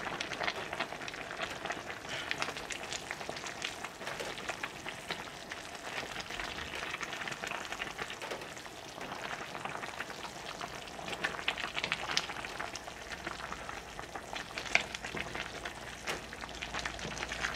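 Wooden spoon stirring a pot of chicken soup thick with chunks of vegetable and greens: wet sloshing with soft scrapes and knocks against the pot, over a steady hiss from the pot on the heat.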